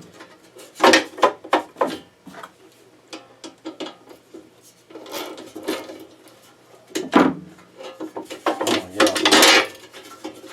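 Hand tools clinking and knocking against an air compressor as its cover is worked off: a run of sharp metallic clicks and rattles, with louder clusters about a second in and again near seven and nine seconds.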